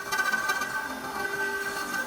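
CNC router running with a steady whine of several fixed pitches and a few faint ticks.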